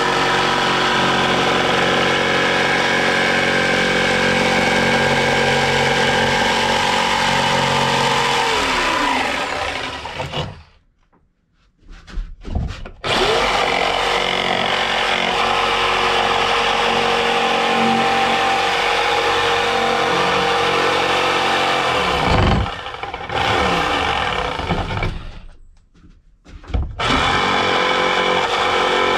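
Electric jigsaw cutting a curve through a wide softwood board, its motor running steadily. It winds down and stops about a third of the way in, then starts again a few seconds later. It pauses once more near the end before running again.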